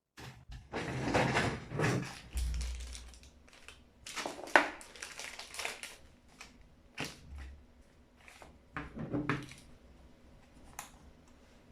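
Irregular crinkling and rustling of packaging being handled, with a few sharp clicks and a couple of dull bumps.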